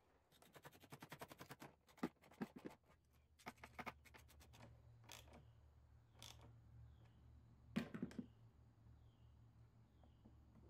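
Hand ratchet clicking in a quick run for about two seconds, then scattered sharp clicks and knocks of tools and parts as components are refitted in the engine bay.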